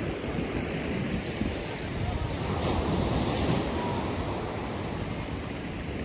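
Black Sea surf breaking and washing up the beach, a continuous hiss of foaming water that swells about halfway through. Breeze rumbles on the microphone underneath.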